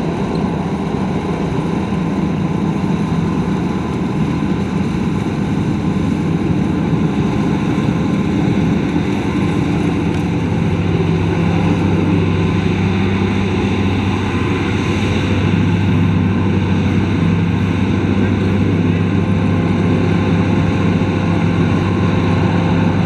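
Luvol RD18 rice combine harvester running steadily under load, a constant engine hum whose pitch shifts and grows slightly louder about ten seconds in.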